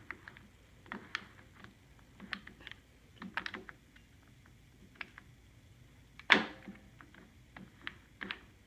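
Light plastic-and-metal clicks and taps from a push mower's controls being worked by hand, with one sharper clunk about six seconds in that rings briefly.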